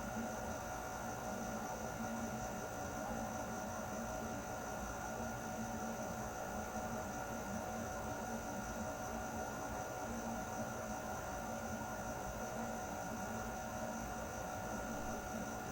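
Air conditioner running steadily: an even rush of air with a low hum and a few faint steady tones above it, unchanging throughout.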